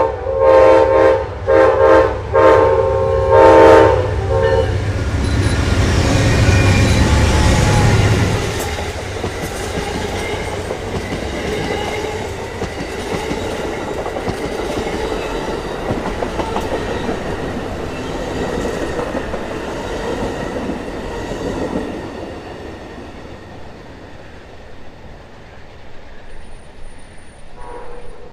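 Amtrak passenger train departing: the diesel locomotive's horn sounds a run of blasts over the first four seconds or so, the last the longest. Then comes the locomotive's engine rumble as it pulls past, followed by the steady clatter of the passenger cars on the rails, fading near the end.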